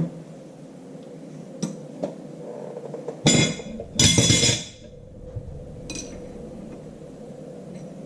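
Hand tools working the tab of a steel fold-over lock washer on a tractor's power take-off shaft: a few light metallic clinks, then two loud harsh scrapes of metal on metal, each about half a second long, a little past the middle.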